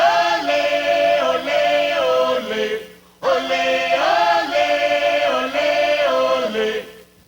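Unaccompanied choir singing two held, chord-like phrases, with a short break between them about three seconds in.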